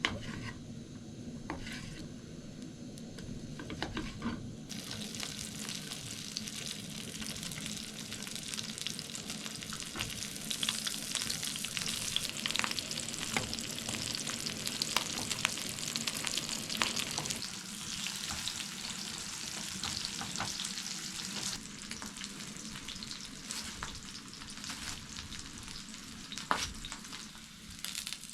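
Food sizzling and spitting in hot fat in a frying pan. The sizzle starts suddenly about five seconds in and keeps up steadily, with fine crackles.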